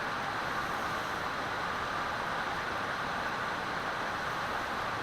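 Steady, even hiss with no pitch, rhythm or sudden sounds.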